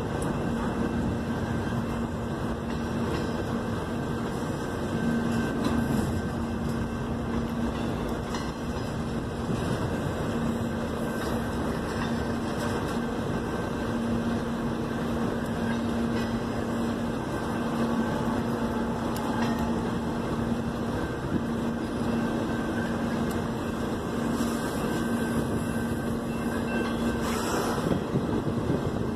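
Double-stack intermodal container train rolling past at close range: a steady rumble of steel wheels on rail, with a constant low hum underneath.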